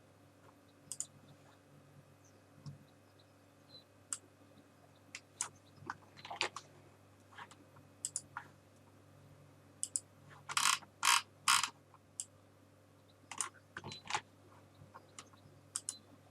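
Irregular clicks and key taps from a computer keyboard and mouse, with three louder taps in quick succession about two-thirds of the way through.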